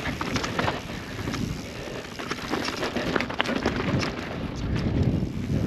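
Wind buffeting a helmet-mounted action-camera microphone while riding a mountain bike down a dirt trail. Irregular clicks and rattles come from the tyres and bike over the rough ground.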